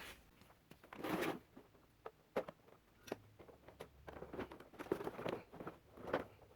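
Handling noises from hands working with small parts and tools: a short rustle about a second in, then scattered light clicks and scrapes.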